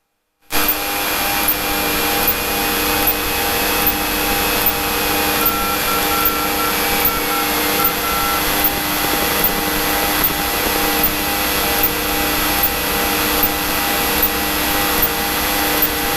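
Cessna light aircraft's cabin noise in flight: the single piston engine and propeller running steadily under the rush of airflow, with a faint tick repeating a little faster than once a second.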